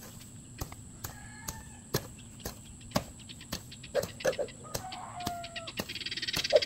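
Chickens clucking, with a few short calls, over a run of sharp knocks about every half second. A brief rustling comes near the end.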